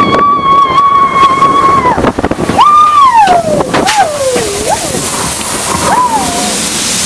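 A roller-coaster rider whooping, a long held high "wooo" for about two seconds, then a second whoop that slides down in pitch and a short one near the end. Under it is the steady rush of the moving mine-train coaster, with a hiss building near the end.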